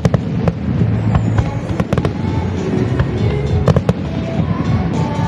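Aerial firework shells bursting in sharp, irregularly spaced bangs over a continuous low rumble of echoing reports.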